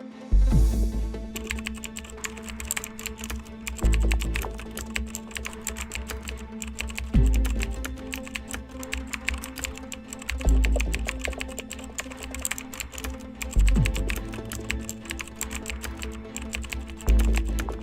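Background music: an electronic track with a heavy bass hit about every three seconds over fast, dense ticking percussion.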